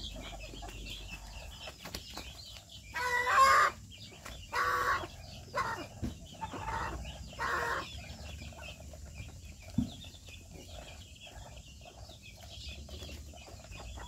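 Chickens calling: a run of about five loud calls between about three and eight seconds in, the first the loudest, over a faint, steady, high-pitched chatter.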